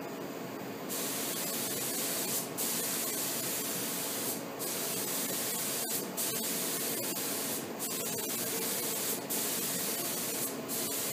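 Compressed-air paint spray gun hissing as it lays a light first coat of clear onto the truck bed. The hiss starts about a second in and breaks off briefly several times as the trigger is released between passes.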